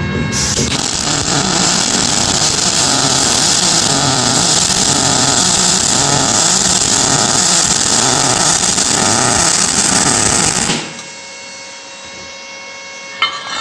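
Fantasy TRIO 230 welder's double-pulse arc on aluminium: a loud, steady frying hiss that swells and eases in a slow rhythm of about one beat a second. It strikes just after the start and cuts off suddenly about 11 seconds in, followed by a low hum and a single click near the end.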